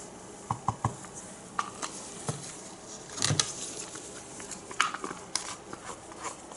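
Light, irregular clicks and taps of plastic paint cups and bottles being handled and set down while paint is poured into a cup.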